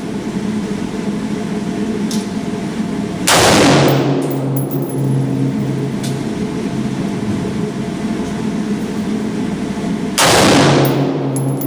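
Two single semi-automatic rifle shots from a Bushmaster ACR firing .223 Remington, about seven seconds apart: one a few seconds in and one near the end. Each is a sharp crack followed by a fading echo, over a steady background hum.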